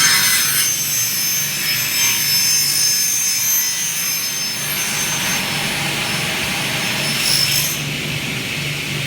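Double-head aluminium cutting saw running, its blades cutting aluminium profile with a steady hiss and a high whine. The whine is strongest right at the start and flares up again about seven seconds in.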